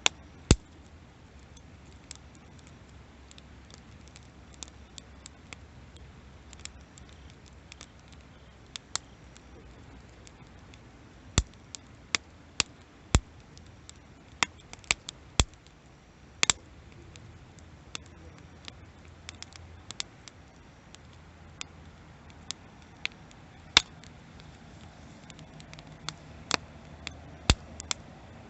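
Wood bonfire crackling: irregular sharp pops and snaps over a low steady hiss, with busier runs of louder pops about halfway through and again near the end.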